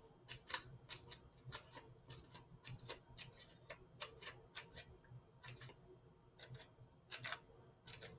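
Small blue-handled scissors snipping a strip of paper, cutting a row of short fringe slits: a faint, quick series of crisp snips, about two or three a second, with a short pause midway.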